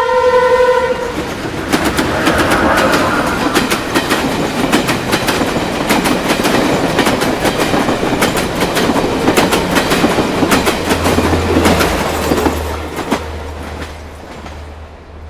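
A train horn cuts off about a second in. Then a train passes at speed, its wheels clacking rhythmically over the rail joints, and fades away near the end. A low steady hum sets in as it fades.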